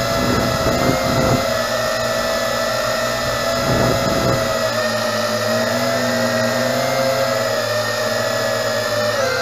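Tarantula X6 drone's motors and propellers whining steadily as it flies, the pitch wavering up and down as it manoeuvres and dipping briefly near the end. Low wind rumble on the microphone for the first few seconds.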